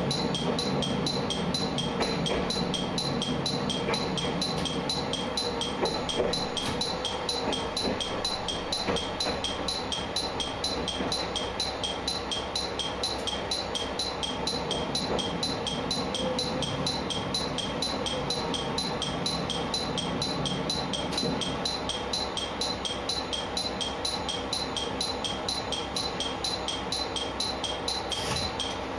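Background music with a steady quick beat, over the low rumble of a train running.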